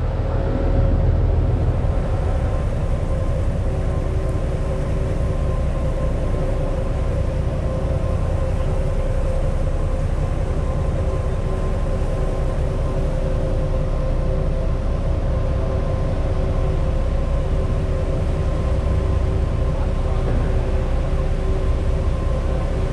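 Large party fishing boat's engines running steadily while under way: a low rumble with a steady hum over it.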